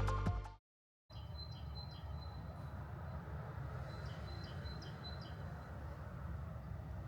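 Background music ending, a brief gap, then outdoor ambience: a steady low rumble with small birds chirping in short, repeated calls.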